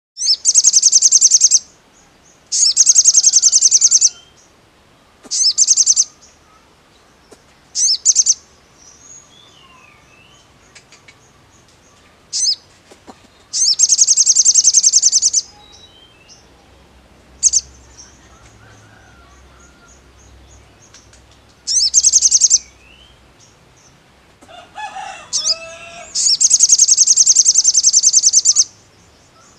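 Male olive-backed sunbird (sogon) singing: loud, very rapid, high-pitched trilled bursts, each half a second to two and a half seconds long, repeated about nine times. Fainter chirps come between the bursts.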